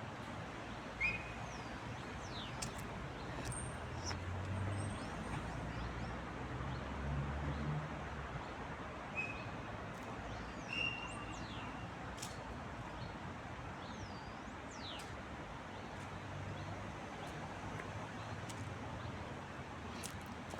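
Small birds chirping outdoors: scattered short high chirps and several quick downward-sweeping calls over a steady background rush. A low rumble swells twice.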